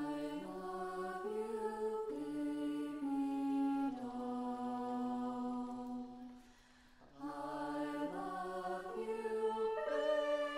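Woodwind quintet of flute, oboe, clarinet, French horn and bassoon playing sustained chords that shift every second or so. The sound thins to a short hush about six and a half seconds in, then the chords resume.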